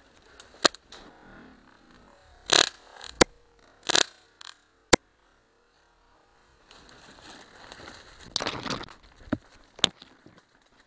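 Paintball markers firing: a few sharp single pops spread out over the stretch, mixed with several louder, longer noisy bursts, over a low rustle of brush. The sound drops out to dead silence for about a second and a half just past the middle.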